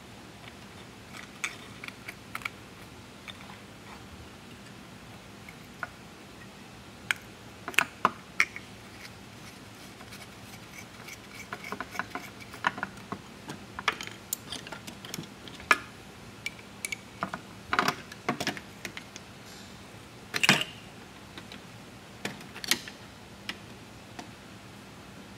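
Metal hand tools clinking and rattling as they are picked through in a steel toolbox drawer: irregular small clicks with a few louder clanks, over a faint steady hum.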